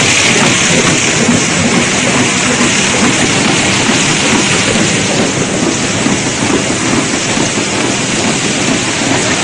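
Corrugated-board corner box forming machine running: a loud, steady mechanical noise with no distinct rhythm.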